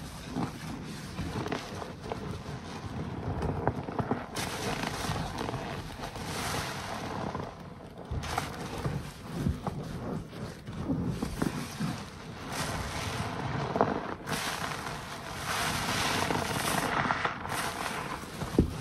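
Soap-soaked waffle car-wash sponges squeezed and kneaded by hand in a tub of thick suds: uneven wet squishing of foam and water, with stretches of hissing foam.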